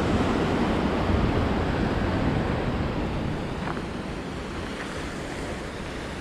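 Ocean surf washing on a rocky shore, swelling over the first couple of seconds and then easing off.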